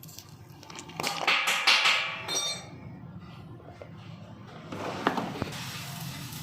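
Metal tools and parts clattering and clinking as they are handled, loudest from about one to two and a half seconds in, with a brief ringing clink, then two knocks a little after the five-second mark.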